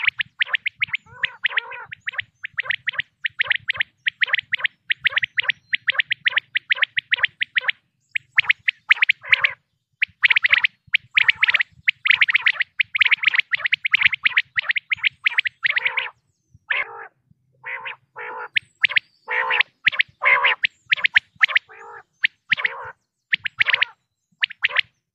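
Recorded common quail calls: a rapid run of short, sharp notes, several a second, with brief pauses about eight and sixteen seconds in.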